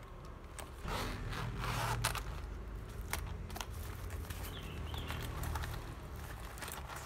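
Zippered fabric laptop sleeve being handled and opened: fabric rustling and scraping with a scatter of small zipper clicks, busiest about a second in.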